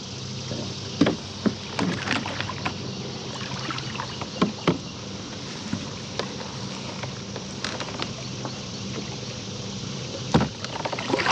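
Scattered knocks and clicks on a fishing kayak as a big hooked catfish is brought alongside and handled, with one louder knock near the end, over a steady low hum.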